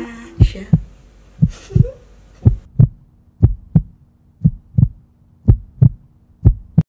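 Heartbeat sound effect: double lub-dub thumps about once a second, seven beats in all, over a faint steady hum, cutting off suddenly near the end.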